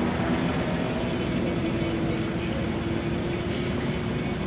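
Steady engine noise with a held hum, as of motor vehicles running in the background.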